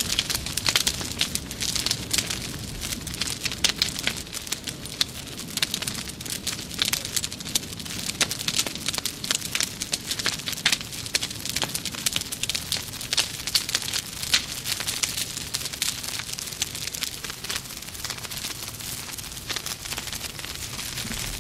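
Bonfire burning, with dense, irregular crackling and popping of burning wood over a low steady rumble of the flames.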